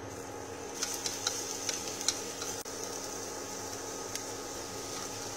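Minced garlic frying in hot oil: a steady sizzle that starts about a second in, with many scattered crackling pops, thickest in the first couple of seconds.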